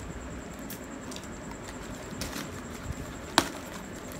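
Scissors cutting and scraping along packing tape on a corrugated cardboard box, with rustling and handling of the cardboard and a few scattered clicks. A single sharp click a little past three seconds in is the loudest sound.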